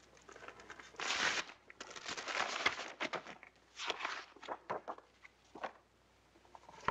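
Paper rustling and crinkling as a document is pulled from an envelope and its sheets unfolded: a few short bursts of rustle with scattered crisp crackles.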